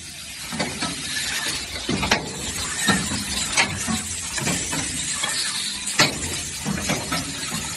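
Automatic gasket-to-lid assembly machine running, with steady mechanical noise and irregular sharp clicks and clacks from its pneumatic grippers and slides as they pick and press silicone O-rings into the lids.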